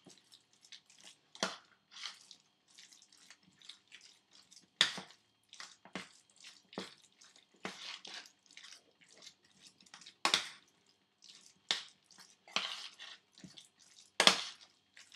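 Raw lamb mince being mixed and squashed in a steel pot: irregular wet squelches and smacks, about one or two a second, a few of them louder.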